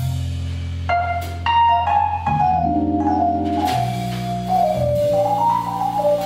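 Jazz piano trio playing: a single-note piano melody over double bass notes, with a few cymbal strokes from the drum kit.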